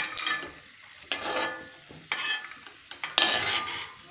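Perforated metal spatula scraping across a metal kadhai four times, about a second apart, each stroke ringing briefly, as fried dry fruits are scooped out of hot ghee. A faint sizzle of the ghee runs underneath.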